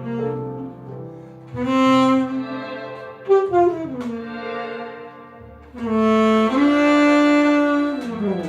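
Saxophone playing a slow melody in long held notes, with a short falling run about three seconds in and a note that steps up and is held near the end, over a soft accompaniment with a low bass line.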